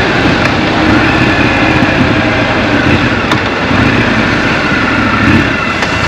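Scrambler motorcycle running under way through city traffic, heard from on board: a steady engine rumble under a loud, even rush of road and air noise.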